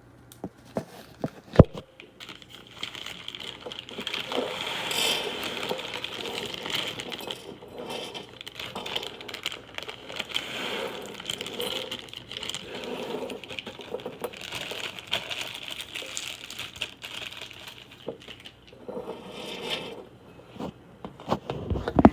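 Dry lentils poured from a bag into a bowl: a few clicks of the bag being handled, then a continuous rattling patter of the small hard lentils falling in for about fifteen seconds, with bag crinkling. A shorter pour near the end and a knock as something is set down at the very end.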